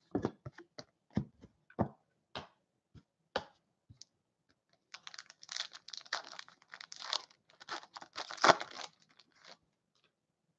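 A few light clicks and taps of cards being handled, then a foil Upper Deck SP Authentic hockey card pack being torn open, its wrapper crackling and crinkling for about four seconds.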